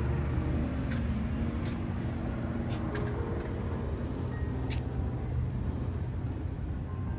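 Road traffic at a highway roundabout: vehicle engines giving a steady low rumble that eases slightly toward the end, with a few faint short high clicks.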